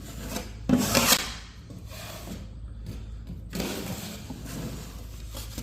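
Drywall knife scraping over tape bedded in joint compound, squeezing out excess mud: a few scraping strokes, the loudest about a second in and another around four seconds.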